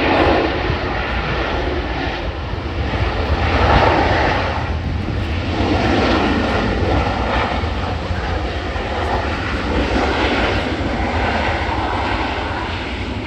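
Jet airliner engines running, a loud rushing noise that swells to a peak about four seconds in and then slowly eases off.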